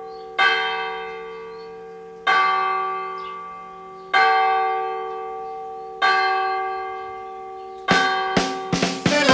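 A bell tolling, struck four times about two seconds apart, each stroke ringing out and slowly fading. Near the end the song's music comes in with a run of quick sharp strokes.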